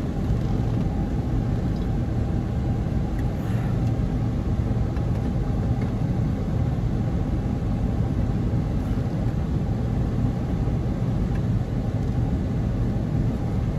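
Steady low rumbling noise with no distinct knocks or clicks.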